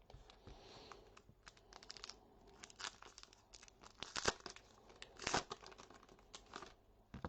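Trading card pack wrapper crinkling and tearing, with cards rustling as they are handled: irregular faint rustles and clicks, with a couple of sharper snaps around four and five seconds in.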